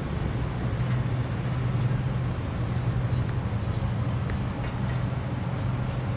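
Steady low mechanical hum of workshop background noise, with a few faint ticks.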